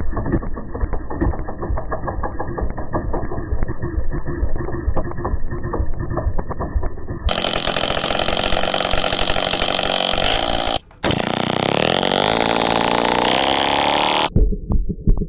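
Simson S51 moped's small two-stroke single-cylinder engine with a transparent cylinder running, in several cuts: a fast, muffled firing beat, then a steadier, clearer run, and after a short break near the middle the revs climb before the muffled beat returns near the end.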